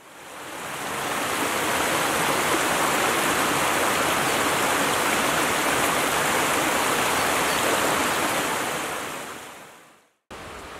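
A small woodland brook tumbling over rock ledges and small cascades, a steady rush of water. It fades in over the first two seconds and fades out near the end.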